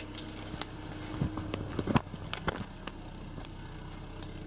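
Volkswagen 1.6-litre 8-valve BSE four-cylinder petrol engine idling steadily, with scattered clicks, knocks and footsteps from the camera being carried, mostly in the first two seconds or so.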